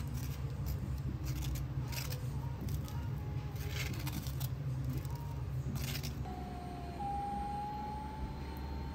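Café counter work sounds: a steady low machine hum, with sharp clicks and clatters every second or two. From about six seconds in, a faint whine slowly rises in pitch.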